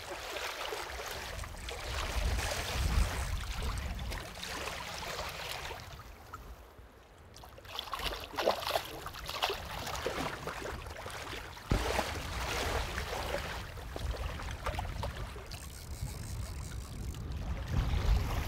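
Shallow water sloshing and splashing around the legs of a wading angler playing a fish, with a low wind rumble on the microphone. A run of sharper splashes comes about eight to nine seconds in.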